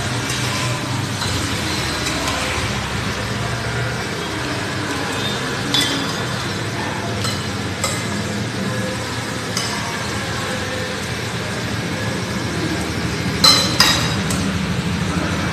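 Cutlery clinking against a bowl a few times over a steady background hum, with a louder pair of clinks near the end.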